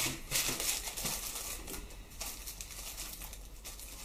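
Thin clear plastic packaging bags crinkling and rustling in irregular bursts as they are handled by hand.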